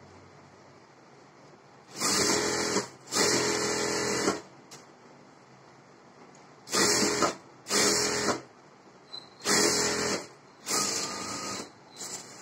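Industrial sewing machine stitching through two layers of fabric, the blouse's lining and main cloth, in about seven short runs, mostly in pairs. Each run lasts under about a second, with pauses between them while the fabric is repositioned.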